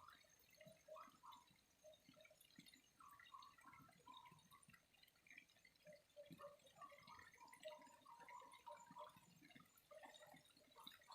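Faint water trickling and dripping, with many small irregular plips and gurgles.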